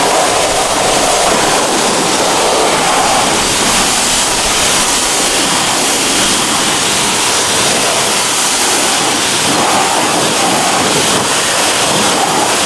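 Pressure washer jet spraying water onto a car's alloy wheel and tyre: a loud, steady hiss of spray as it rinses off wheel cleaner and grime.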